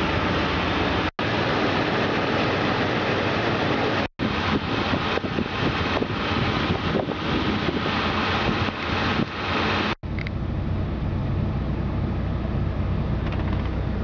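1981 Chevrolet Silverado pickup's engine running at idle. It is first heard close up as a loud, even rushing noise, then, about ten seconds in, as a steadier, duller low hum. The sound breaks off for an instant three times.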